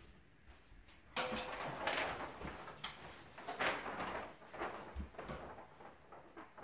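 Large sheet of self-adhesive wallpaper rustling and crinkling in irregular bursts as it is pulled and handled, starting about a second in and dying down near the end.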